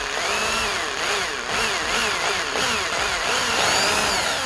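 Electric drill boring out a rivet in a die-cast toy car, the bit cutting into the metal. The motor whine keeps dipping and recovering about twice a second as the bit bites.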